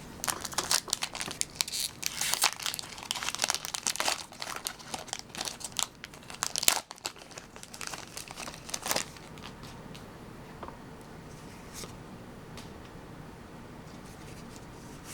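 Foil booster-pack wrapper of Pokémon trading cards crinkling and tearing as it is handled and opened, a dense run of crackles for about nine seconds, then only a few faint rustles.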